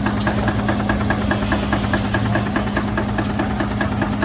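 An engine running steadily with a low hum and a regular ticking, about six ticks a second.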